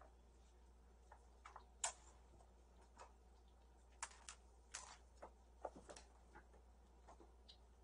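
Faint, irregular light clicks and taps of kittens at play, the loudest about two seconds in, over quiet room tone.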